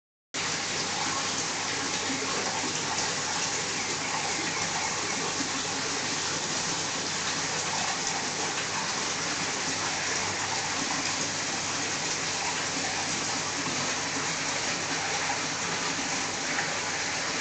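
Steady rush of running, splashing water, even and unchanging, as from water flowing or aerating into a koi tub; the sound drops out briefly at the very start.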